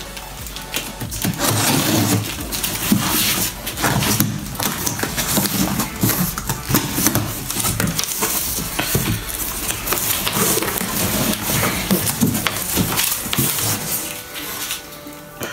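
Scissors slitting the packing tape on a large cardboard box, then the cardboard flaps pulled open and handled, with irregular scraping, rustling and short knocks of cardboard.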